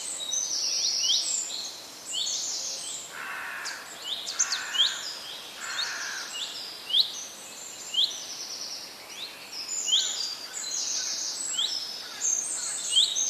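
Several forest birds calling together: quick high chirps and sweeping notes repeating over and over, with a few lower calls about three to six seconds in, over a faint steady hiss.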